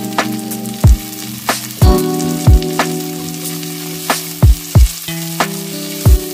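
Carrots and string beans sizzling as they are stir-fried in a nonstick wok, under background music with steady held chords and a deep bass beat.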